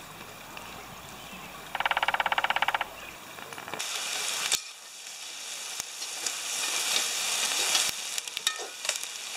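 Chopped vegetables frying and sizzling in a pot over an open campfire, stirred with a spoon that scrapes and clicks against the pot; the sizzle comes in about four seconds in and grows. Before it there is a quieter steady hiss and a brief rhythmic buzz about two seconds in.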